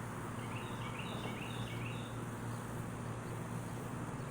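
A steady low background hum, with a quick run of short, high chirps from about half a second to two seconds in.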